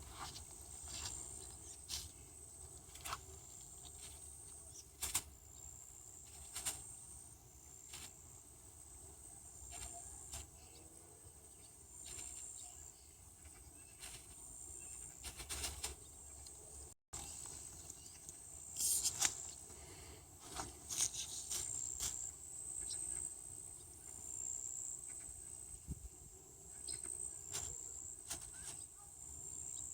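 Insects trilling steadily in a high pitch, broken up now and then, with scattered sharp clicks and knocks throughout, the loudest about 19 seconds in.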